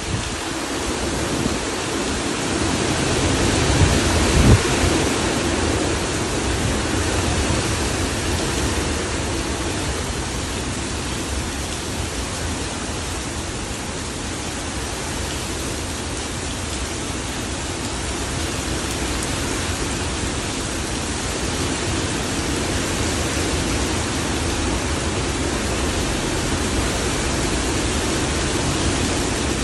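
Hurricane Milton's wind and heavy rain making a loud, steady rushing noise. It swells a little with a couple of brief low thumps about four seconds in.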